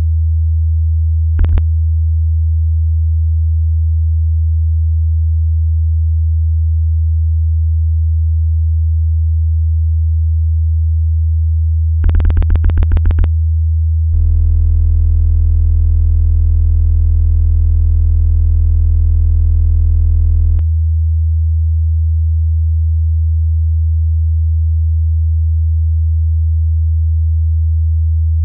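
Electronic soundtrack: a steady low sine-tone hum, with a short click about a second and a half in and a quick run of clicks about twelve seconds in. Then a buzzier, fuller tone sounds over the hum for about six seconds and cuts off suddenly.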